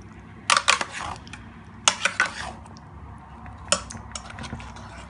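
A spatula scraping and knocking against the side of a metal pan while gently stirring a thick curry. It comes in three short clusters of clatter: about half a second in, around two seconds in, and near four seconds.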